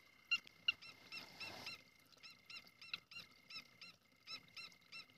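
Faint night-time animal calls: short notes that rise and fall in pitch, repeated about three to four times a second, over a steady high insect drone.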